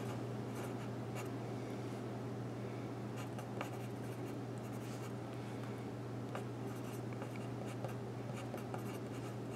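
Pencil writing on a paper address label on a plastic plant marker: faint, scattered scratches of the lead, over a steady low hum.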